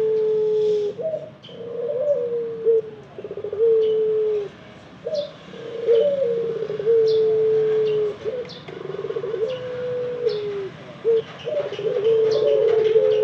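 Ringneck dove cooing: a string of low coos, each phrase a short rolling note followed by a long held tone, repeating about every two seconds. Faint short high chirps sound in the background.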